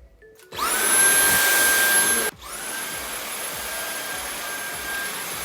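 Dyson cordless stick vacuum switched on, its motor spinning up with a rising high whine over a loud rush of air, cut off just after two seconds and switched straight back on, running steadily but quieter the second time. It is being test-run on a freshly fitted replacement battery.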